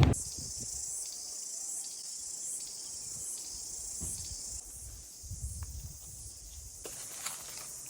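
A steady high-pitched insect chorus, swelling and easing slightly in pulses, with faint low rumbles and a soft knock near the end.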